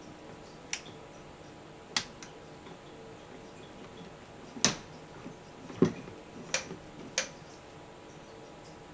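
Six or so light, sharp taps and knocks at irregular intervals, the loudest about five to six seconds in: a cat batting at a hair dryer and its cord.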